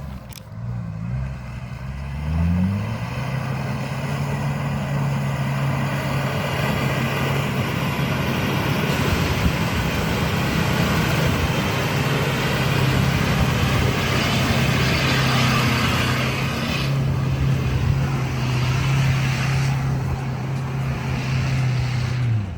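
Off-road vehicle's engine revving up about two seconds in and then held at steady high revs under load, with a dense rushing noise over it, before the revs drop away at the end.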